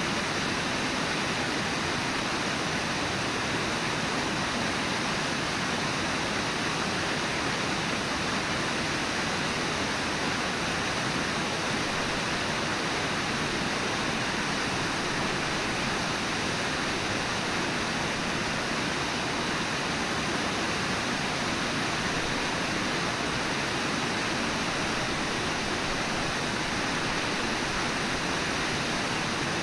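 Steady rush of flowing river water, unbroken throughout.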